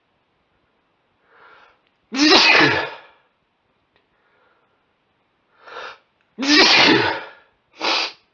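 A man sneezing from allergies: two loud sneezes, each after a short intake of breath, then a shorter burst near the end.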